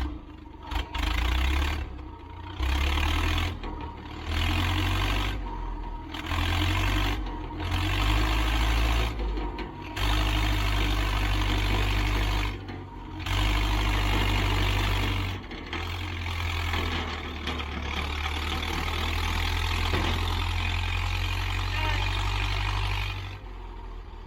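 Pickup truck engine and tyre noise in repeated short surges, then one longer steady pull, as the truck tries to drag a car on a tow strap over ice and snow.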